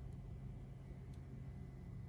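Quiet room tone with a steady low hum, and two faint ticks from fingers handling small LED parts.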